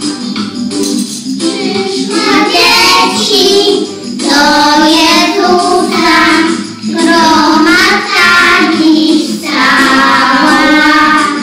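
Children's song with singing over an instrumental backing track. The singing comes in about two seconds in, in phrases of two to three seconds.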